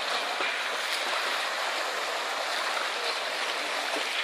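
Steady rushing and splashing of sea water churned up beside a boat.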